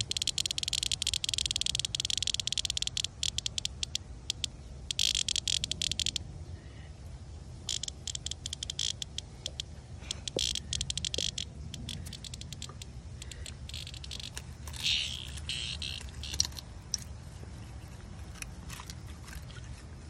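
Cicada held in the hand giving its rattling distress buzz in bursts: a long burst over the first few seconds, then shorter ones around five, eight, ten and fifteen seconds in.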